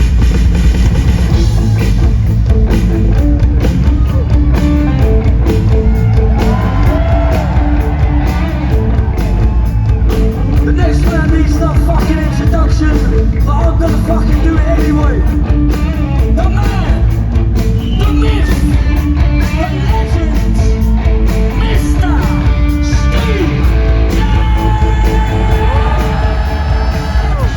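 Punk rock band playing live: drums, bass and guitar with a sung, shouted lead vocal.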